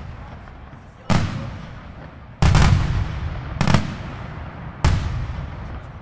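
Aerial firework shells bursting: four sharp bangs a little over a second apart, each trailing off in a rumbling echo, the loudest about two and a half seconds in.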